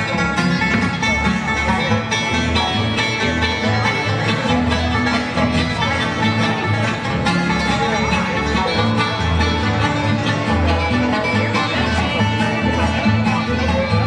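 Live bluegrass band playing an instrumental stretch, with banjo, acoustic guitar, resonator guitar and fiddle over an upright bass thumping out notes on a steady beat.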